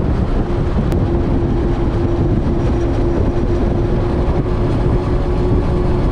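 Twin Mercury Racing 450 supercharged V8 four-stroke outboards running steadily at high speed, a constant engine tone over the rush of wind and water from the hull.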